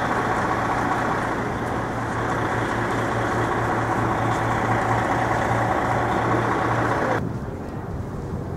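Steady, loud mechanical drone with a constant low hum, such as a heavy vehicle's engine or large machinery running close by. It cuts off abruptly about seven seconds in, leaving quieter street background.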